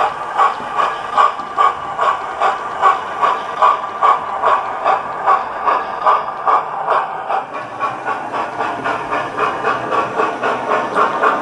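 Sound decoder of a Hornby TTS OO-gauge LNER P2 model steam locomotive playing steam chuffs with hiss through an upgraded megabass speaker, a steady beat about two to three times a second. The chuffing fades a little past the middle as the engine runs away, and grows louder near the end as it comes back.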